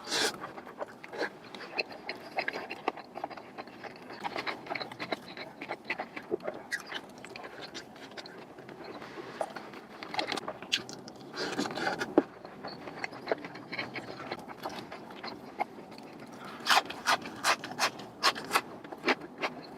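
Close-miked eating sounds of a juicy, saucy burger being chewed: wet clicks and smacks throughout, with a run of sharp, regular chewing smacks about twice a second near the end.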